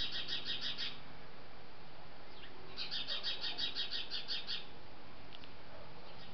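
Small nesting birds chirping in quick runs of high chirps, about seven a second. There are two bouts, one at the start and another from about three seconds in.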